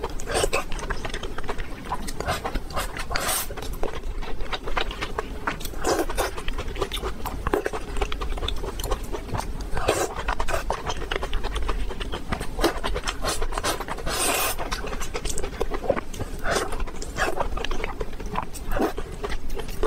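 Close-miked eating: wet chewing, lip smacks and slurps as saucy stir-fried Chinese dishes and rice are taken in and chewed, irregular clicks coming many times a second, with a longer slurp or breath about two-thirds of the way through.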